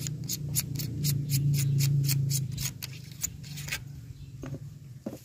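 Rifle scope turret being dialled: a fast, even run of crisp clicks, about four a second, for nearly four seconds, as the aim is corrected for shots landing left and low. A low wind rumble on the microphone runs underneath.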